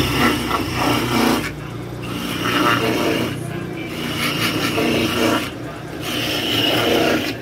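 Electric coconut grater with its motor humming steadily, rasping loudly each time a coconut half is pressed against its spinning serrated head. It grates in four strokes of about a second and a half, with short gaps between.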